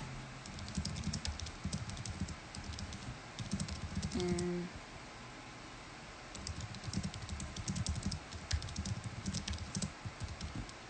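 Fingertips tapping quickly on a smartphone's touchscreen, picked up close by the phone's own microphone as a run of sharp clicks and dull knocks like typing. The tapping pauses about four seconds in, where a short hum of a voice is heard, and then starts again.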